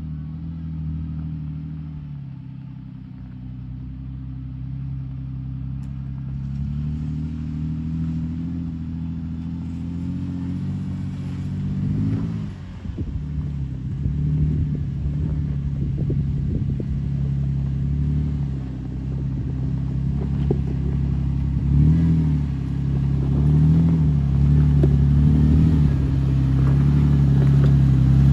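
Toyota FJ Cruiser's 4.0-litre V6 engine pulling slowly up a steep rutted dirt hill in low gear. It grows louder as the vehicle approaches, with a few short revs in the last part. There is some clatter about halfway.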